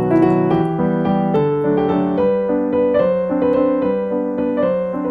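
Background piano music that cuts off suddenly at the very end.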